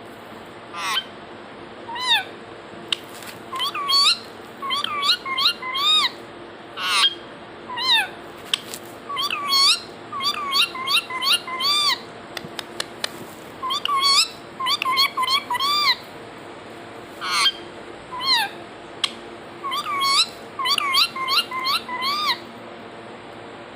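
Pet parrot calling over and over in short, curved, squawky notes, in quick clusters of two to five with brief pauses between.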